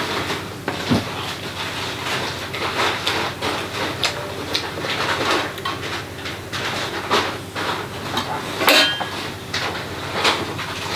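Spoons clinking and scraping against steel plates at a meal: irregular short clinks and knocks, with one brighter ringing clink near the end.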